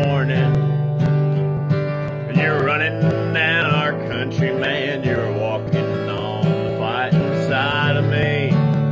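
A steel-string dreadnought acoustic guitar strummed in a steady country rhythm, with a man singing over it.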